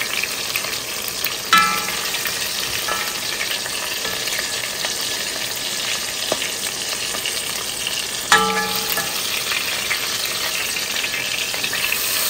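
Palm oil sizzling steadily in a pot as dried salted fish (koobi) fries in it. A utensil clinks against the pot twice with a short ring, about a second and a half in and again past eight seconds.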